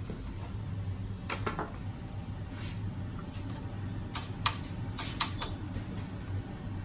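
A few sharp clicks and knocks over a steady low hum: two close together about a second and a half in, then about five more in quick succession from about four seconds in.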